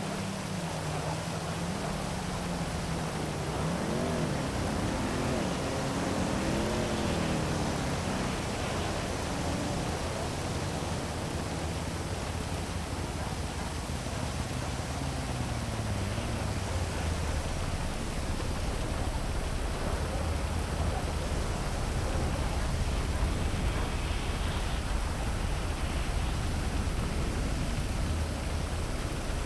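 Steady heavy rain hiss with city traffic under it: a vehicle engine drones past early on and another one about halfway through, each falling in pitch as it goes by.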